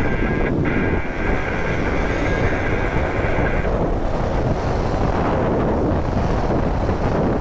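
Large adventure motorcycle running at speed across a dry lake bed, its engine and tyre noise mixed with heavy wind rush buffeting the helmet microphone.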